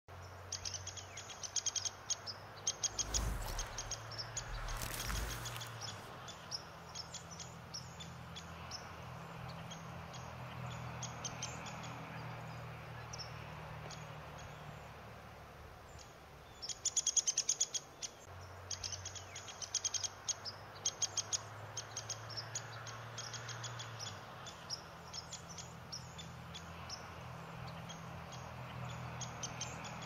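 Birds chirping in bursts of short, high chips, thickest near the start and again a little past the middle, over a steady low hum. A couple of dull low thumps come around three and five seconds in.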